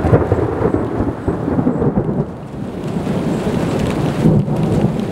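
Thunder: a loud, low rumble that breaks in suddenly and rolls on without pause, swelling again about four seconds in.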